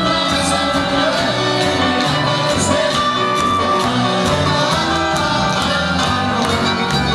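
Live cuarteto band playing a dance tune with a steady beat, with singing over it.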